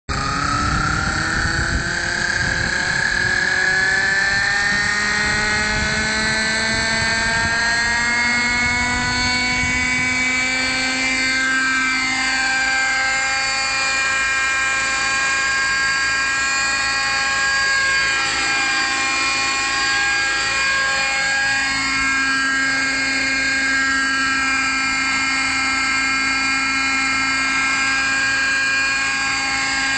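Radio-controlled model helicopter spooling up for take-off: a high whine from its motor and rotors rises steadily in pitch over the first ten seconds, then holds a steady pitch in flight, with a few brief sweeps in pitch as it manoeuvres.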